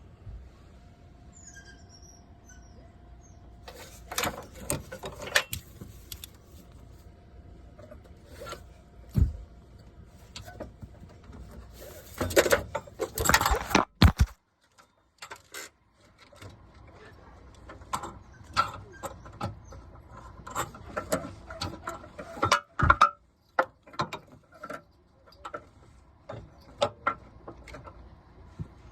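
Metal hand tools and car parts clinking and clattering: irregular knocks and rattles, with a short silent gap midway.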